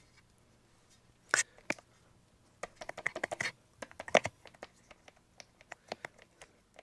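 Keys of an X-keys XKE-40 programmable USB keyboard being pressed, a run of light taps in quick clusters with no mechanical click. Two sharper knocks come about a second and a half in.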